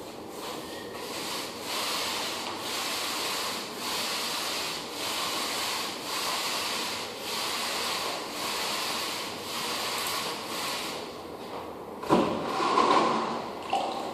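Applicator pad on a pole rubbing wet floor finish across a hardwood floor in steady back-and-forth strokes, roughly one a second. A louder knock and scrape about twelve seconds in.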